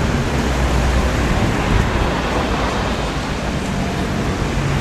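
Motorcycle engines running steadily: a low, even drone under a dense hiss of noise.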